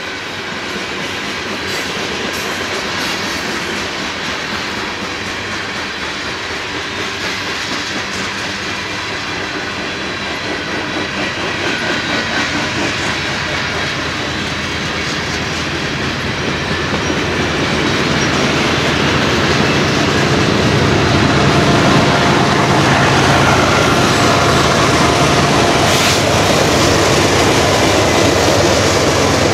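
BNSF freight train rolling past at trackside, its wheels clacking steadily over the rails; the noise grows louder a little past halfway through.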